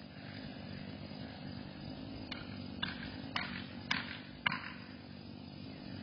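Five sharp knocks, evenly spaced about half a second apart, from work at the base of a dead pine being felled. They sit over a low steady hum.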